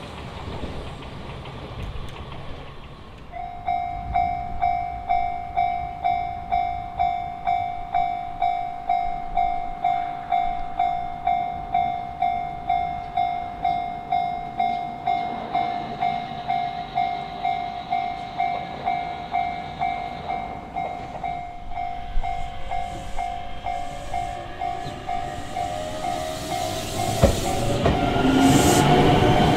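Japanese level-crossing warning bell, a single clanging tone repeating at about one and a half strikes a second, starting about three seconds in. Near the end a commuter train approaches the crossing and its running noise rises to drown the bell.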